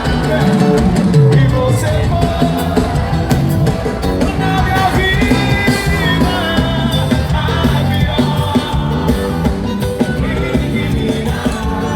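Live forró band music at full volume, with a steady beat and a lead voice singing over it.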